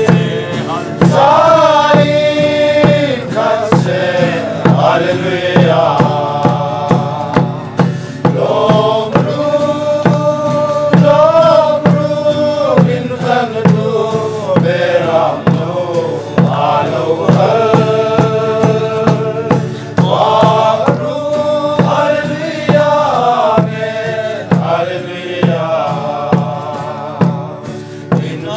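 A men's group singing a Mizo hymn together, accompanied by acoustic guitars and a drum beating a steady pulse of about two strokes a second.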